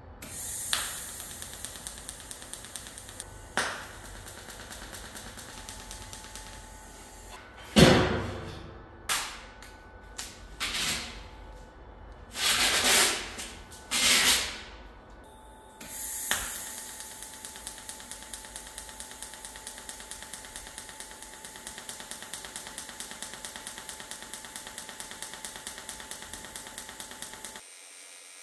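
TIG welding arc on stainless steel pipe: a steady hiss with fast, even ticking, several ticks a second. Midway it is broken by a handful of loud short bursts, then runs on again for the last ten seconds or so.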